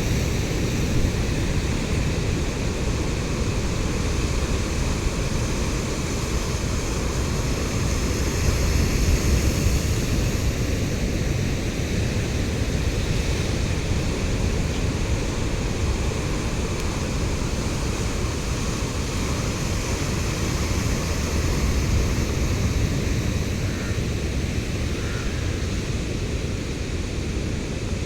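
Sea surf on a shore: a steady rush of noise that swells slightly in loudness now and then.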